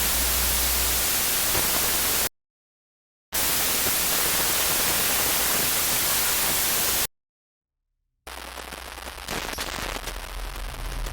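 Static hiss sound effect in two loud bursts, one about two seconds and one about four seconds long, each cutting off abruptly into dead silence. About a second after the second burst, a quieter low rumble with scattered crackles starts and grows louder.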